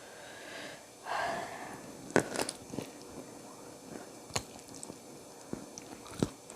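Person eating a spicy chicken-feet meal with raw vegetables, close to the microphone: biting and chewing with sharp crisp snaps several times, and a breathy hiss about a second in.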